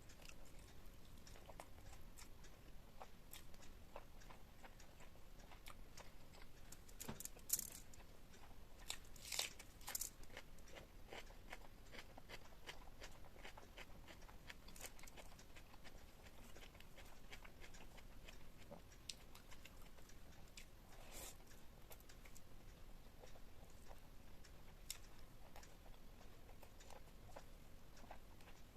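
Close-up eating sounds: a person chewing and biting food with small wet clicks, and a few louder crunches about a third of the way in and again past the middle.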